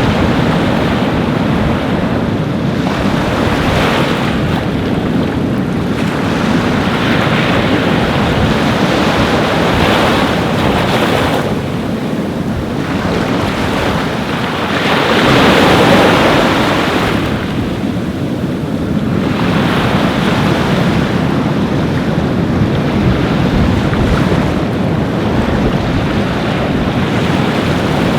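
Ocean surf washing continuously onto a beach, rising and falling in slow surges with one larger wave swelling up about halfway through, and wind rumbling on the microphone.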